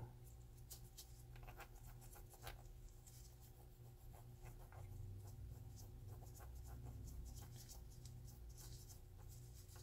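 Faint scratching and small ticks of an oiled cotton swab rubbed along the steel coils of a pistol's guide rod spring assembly, laying on a thin coat of gun oil, over a low steady hum.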